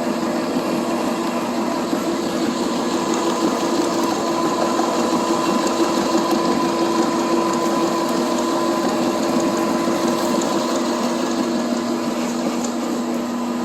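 Small electric drive motor with a worm-gear gearbox running steadily, driving a homemade sawdust conveyor: an even mechanical hum with a few steady tones.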